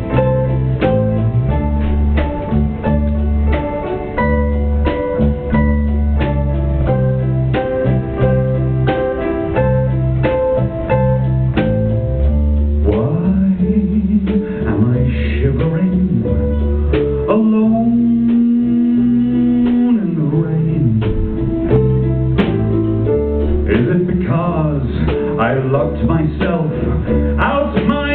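Live band playing a song's instrumental introduction, plucked guitar over a steady bass line. About halfway through, swooping, gliding notes come in, with one long held note.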